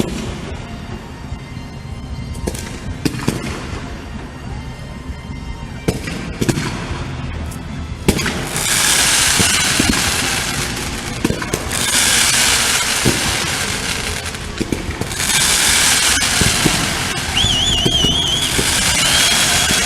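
Fireworks display going off: a series of sharp bangs, then from about eight seconds in long loud stretches of dense crackling over the continuing booms. A short warbling whistle sounds near the end.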